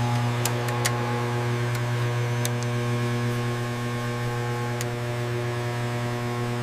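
Steady low electrical machine hum with a stack of overtones, and a few faint ticks and clicks scattered through it.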